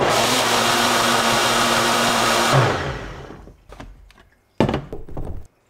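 Countertop blender running at full speed on frozen berries, spinach and protein powder in water, then spinning down about two and a half seconds in. A few knocks follow near the end as the jar is handled on the base.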